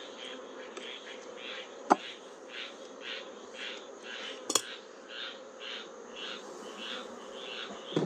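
Honeybees humming steadily around an opened hive, with a higher pulsing sound repeating about twice a second. Two sharp knocks of a frame grip and wooden frame against the hive box, about two seconds in and louder at about four and a half seconds, as a capped honey frame is pried up and lifted out.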